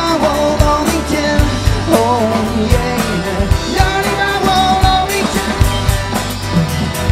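Live rock band playing: drum kit keeping a steady beat, electric bass and steel-string acoustic guitar, with a melody line gliding over the top.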